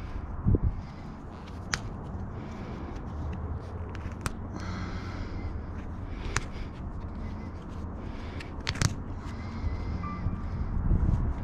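Pieces of scrap metal being handled and sorted: a few sharp clinks and knocks, several seconds apart, over a low outdoor rumble.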